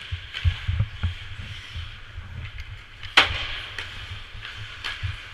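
Ice hockey rink sounds: skate blades scraping the ice, with scattered clacks of sticks and puck, the loudest a sharp crack about three seconds in, over dull low thuds.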